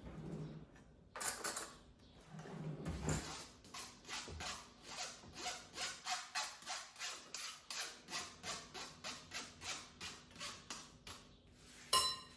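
Rhythmic rubbing or scraping strokes, about three a second, in a steady run, followed near the end by a single sharp, ringing clink.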